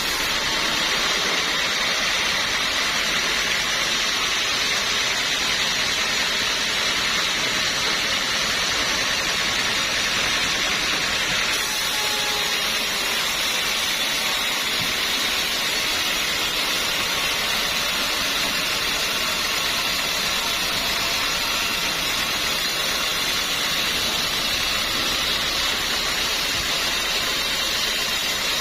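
Sawmill machinery running steadily, a constant even noise that does not rise or fall in load.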